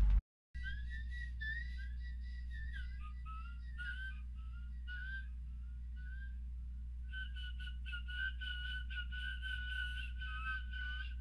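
A slow, wavering whistled tune over a steady low hum: short gliding notes at first, then one long held note with a slight waver. It cuts in abruptly just after the start and cuts off just as abruptly.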